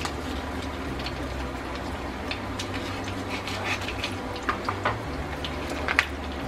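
Salami slices sizzling in oil in a frying pan: a steady hiss with small scattered pops. Near the end come a few sharper clicks and crackles from the plastic cheese packaging being handled.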